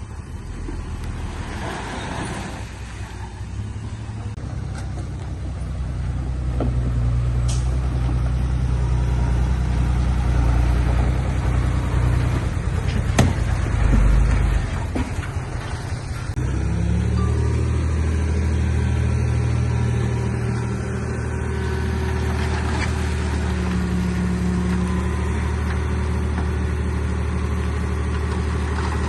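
Heavy construction machine's diesel engine running under load, getting louder about five seconds in, with a sharp knock about halfway through; the engine note drops and shifts soon after, then runs steadily.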